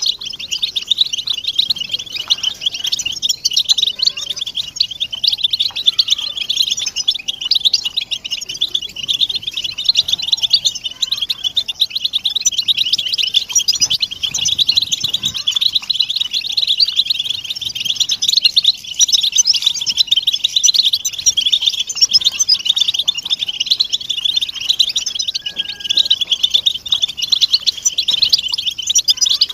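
Many European goldfinches calling at once: a dense, unbroken twittering chatter of overlapping high chirps. This is the flock's chattering 'betbeta' call that goldfinch keepers play to stimulate a silent male to sing.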